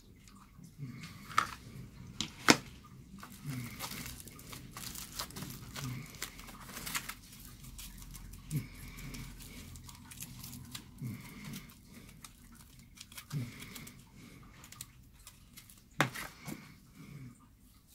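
Aluminium foil being crumpled and squeezed into shape by hand, crinkling and rustling unevenly, with a few sharp knocks on the table, the loudest about two and a half seconds in and near the end.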